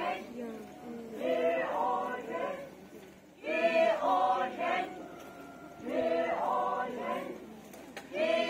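A group of children chanting a folk song together in short repeated phrases, about one every two and a half seconds, each starting strongly and then fading.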